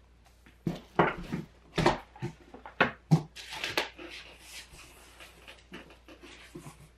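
Hands rummaging in a cardboard shipping box: a string of sharp knocks and scrapes of cardboard and loose parts, with a spell of rustling about three and a half seconds in, then fainter scuffs.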